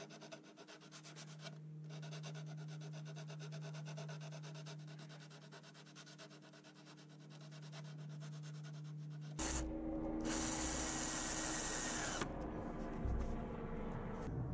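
A hand sanding block rubbed back and forth over the corner of a wooden board, rounding it off, in quick rasping strokes. About nine seconds in, this gives way abruptly to louder tool noise.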